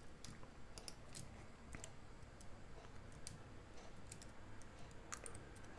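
Faint, scattered clicks of a computer keyboard and mouse as code is pasted and edited, a dozen or so irregular taps.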